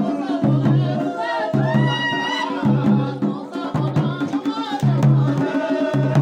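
Garhwali folk dance music: a deep drum beats a steady rhythm of about two strokes a second, with a wavering singing voice carrying the melody above it.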